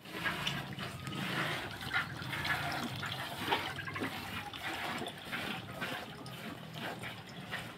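Water pouring steadily from a pipe into a half-full metal barrel, with the repeated hiss of milk squirting into a plastic bucket as a cow is milked by hand.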